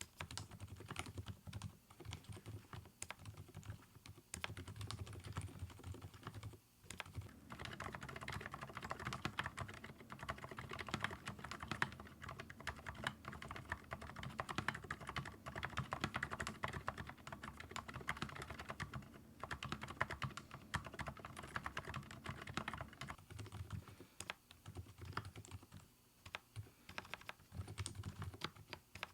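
Typing test on an mStone Groove T tenkeyless keyboard with factory-lubed silent Milky switches: a steady stream of soft, muffled keystrokes, densest in the middle, with a couple of brief pauses. The switches are quieted by a cushioning design in the stem slider rather than silicone dampers, leaving the typing close to silent.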